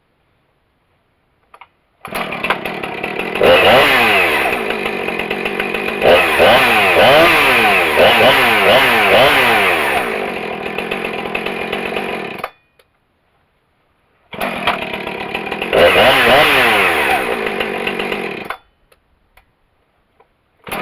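Husqvarna 455 Rancher chainsaw's 55.5 cc two-stroke engine running and being revved up and down, its pitch rising and falling repeatedly. It runs for about ten seconds and cuts off suddenly, then runs again for about four seconds with another rev before cutting off, and starts once more at the very end.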